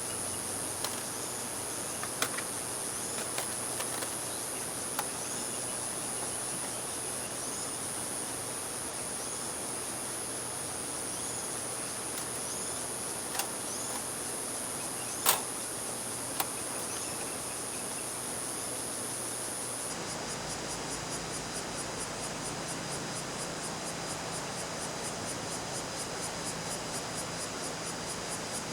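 Night insects, crickets among them, calling: a steady high-pitched buzz with small repeated chirps, then a fast, evenly pulsing trill for the last third. A few sharp clicks stand out, the loudest a little after the middle.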